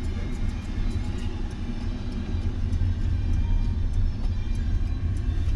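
Steady low engine and road rumble of a moving vehicle, heard from on board.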